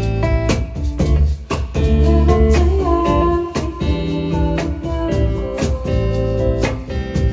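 A live band playing an acoustic-version rock song: guitar over bass, with evenly spaced drum hits keeping a steady beat.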